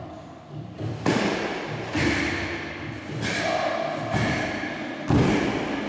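Bare feet stepping and stamping on a wooden gym floor during a karate kata: several sharp thuds roughly a second apart, the loudest about five seconds in.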